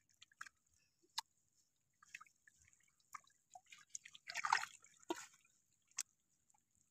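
Wet, dripping rustle and scattered clicks of a fine-mesh fishing net being lifted and shaken as a catch of small fish tips into a wicker basket. The loudest crackly stretch comes a little past halfway.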